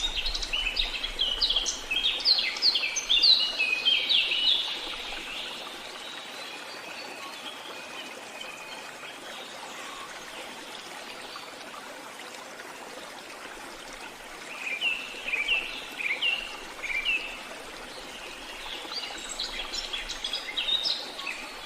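Songbirds singing in bursts of quick, chirping phrases: a dense run in the first few seconds, then two shorter bursts in the second half. Under them runs a steady hiss.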